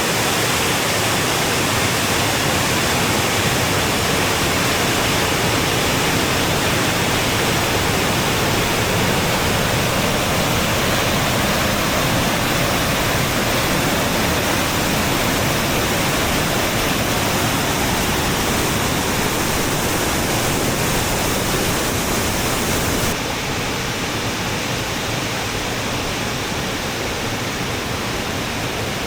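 Waterfall: a steady rush of falling water. About 23 seconds in it abruptly becomes a little quieter and loses some of its hiss.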